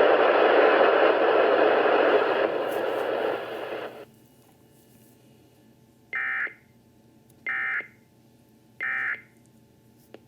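Steady radio static hiss that fades out around four seconds in. It is followed by three short, identical screeches of Emergency Alert System digital data about a second and a quarter apart: the end-of-message (EOM) tones that close an EAS broadcast.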